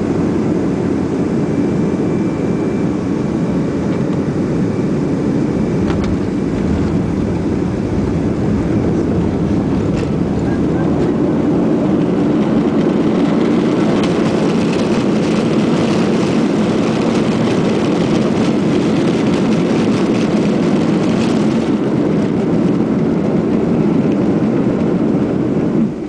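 Jet airliner cabin noise during landing, heard beside the wing: a steady rush of engine and airflow. It grows louder about halfway through as the under-wing engine's thrust reversers open and the engines spool up to brake the plane on the runway.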